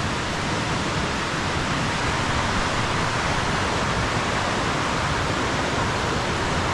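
Steady rush of a mountain stream flowing over rocks: an even, unbroken water noise.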